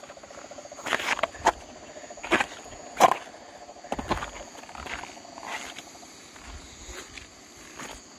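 Night chorus of insects buzzing steadily high up, with frogs calling in a fast trill through the first part. Irregular footsteps knock and crunch on loose river cobbles, the loudest about three seconds in.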